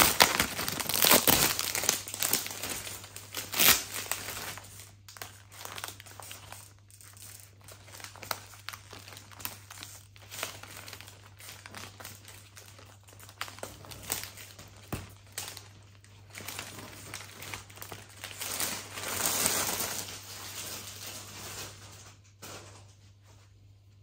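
Gift packaging being handled and unwrapped, crinkling and rustling. The rustling is loudest in the first few seconds and again near the end, then stops.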